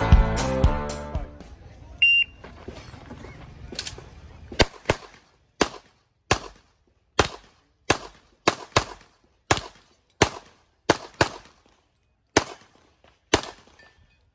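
Shot-timer start beep about two seconds in, then about sixteen handgun shots fired over ten seconds, unevenly spaced with several quick pairs. Music fades out in the first second or so.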